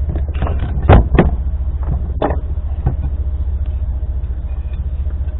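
A vehicle engine idling with a steady low, evenly pulsing hum, with a few sharp knocks about one, two and three seconds in.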